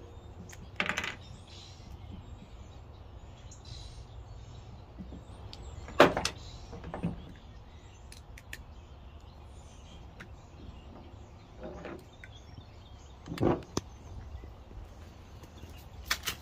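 Handling of rubber hoses and hand tools on a plastic truck bed liner: a few separate sharp knocks and clicks as things are picked up and set down, the loudest about six seconds in, over a steady low outdoor background. Near the end come a few quick clicks as footsteps start on pavement.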